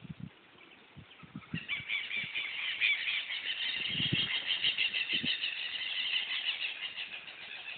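A flock of birds chattering, many rapid high-pitched calls that swell in about a second and a half in and keep going. A few low knocks sound against the microphone.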